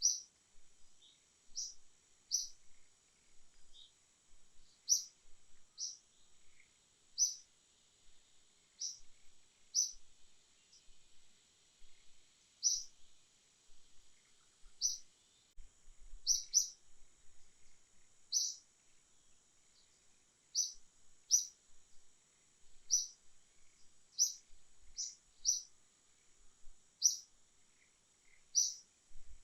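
Bird chirps: short, high single notes repeating about every second or so, over a faint steady high-pitched insect drone.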